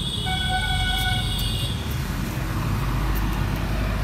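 A vehicle horn sounds once, a steady held tone lasting about a second and a half, over a steady low rumble.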